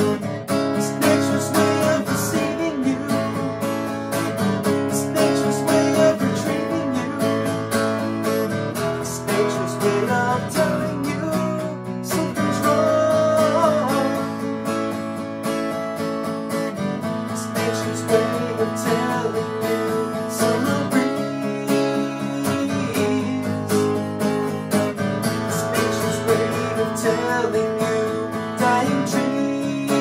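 Solo Taylor steel-string acoustic guitar being played, with ringing chords and picked notes.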